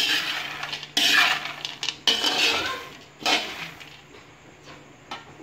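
A metal slotted spatula scrapes through a pan of fried peanuts and crispy fried garlic, tossing them so the nuts rattle against the metal. There are four strokes about a second apart, and it goes quieter near the end.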